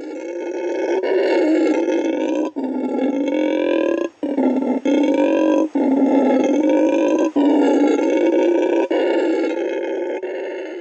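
Howler monkey roaring: a long, deep, continuous roar broken by several brief gaps, fading near the end.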